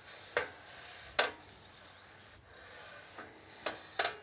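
Paper towel rubbing and wiping across a dimpled grill plate, clearing off coarse dirt and grease after grilling, with several short sharp scratchy sounds, the loudest about a second in.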